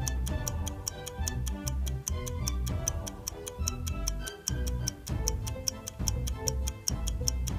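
Clock-ticking sound effect, about four to five even ticks a second, over background music with a pulsing bass line.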